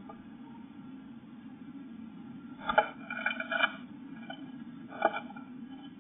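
Blue tit moving about inside a wooden nest box: a few short scratchy taps and scrapes, a cluster about three seconds in and one more about five seconds in, over a steady low hum.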